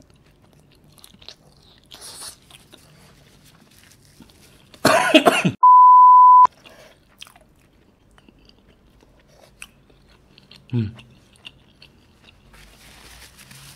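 Faint chewing, then about five seconds in a loud harsh burst of noise followed at once by a steady high beep test tone of about a second that cuts off suddenly: the tone of a colour-bar test-pattern insert. A short throaty sound near the end.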